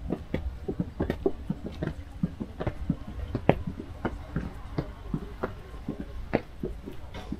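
A rapid, irregular series of light clicks and knocks, several a second, over a low rumble.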